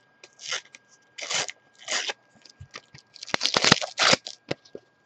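Panini FIFA 365 sticker packet being handled and torn open: a few short crinkles of the packet, then a dense run of tearing and crackling a little over three seconds in.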